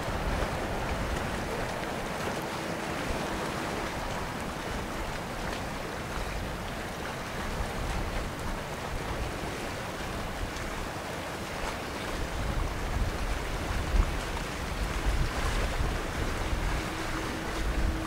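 Wind on the microphone and waves washing along the shore, over the distant rumble of a landing Boeing 777-300's jet engines. The low rumble grows louder and gustier over the last several seconds.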